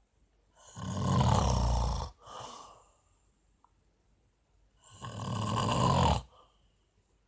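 A man snoring: two loud snores about four seconds apart, each a long breath of about a second and a half with a low buzz. The first is followed by a short, softer breath out.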